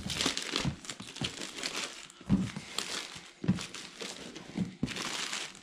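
Plastic box wrap crinkling and crackling as it is handled and crumpled, irregular, with a few soft thuds.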